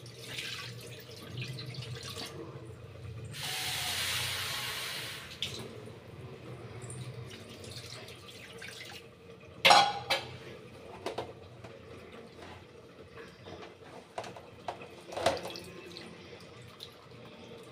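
Water poured from a steel tumbler onto curds in a cotton cloth, splashing for about two seconds, with a few sharp knocks later from the vessels being handled. Near the end, water trickles through a mesh strainer as the cloth is squeezed.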